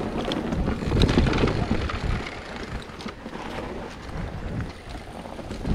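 Wind buffeting the microphone of a mountain bike rider's camera while riding a trail, with an uneven low rumble from the bike rolling over rough ground that swells about a second in and again near the end.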